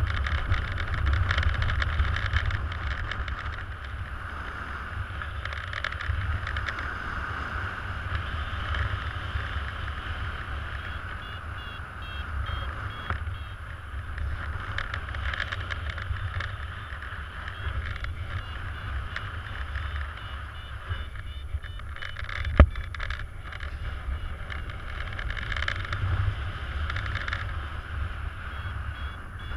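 Airflow rushing over an action camera's microphone in paraglider flight, a steady windy rumble that swells and eases. From about a third of the way in, a variometer beeps faintly and quickly. One sharp click comes about three-quarters through.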